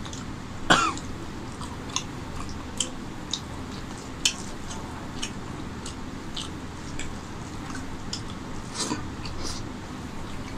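Wet eating sounds: a scattered series of short sharp clicks and smacks from chewing and from fingers mixing rice and curry. Less than a second in, a short throat-clearing cough is the loudest sound.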